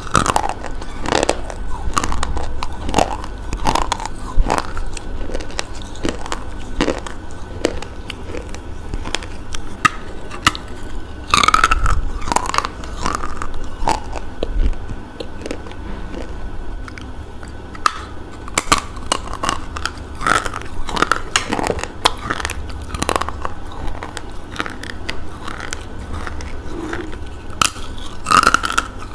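A person biting and chewing brittle baked clay close to a clip-on microphone: sharp, irregular crunches and crackles as the fired clay breaks between the teeth, easing into quieter chewing around the middle before the crunching picks up again.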